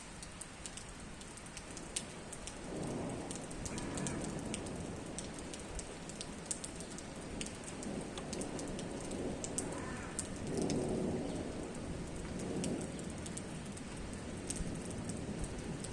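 Steady rain falling, with sharp ticks of single drops hitting a surface close by. Low rumbles swell up and fade a few times, about three seconds in, again around ten seconds, and near the end.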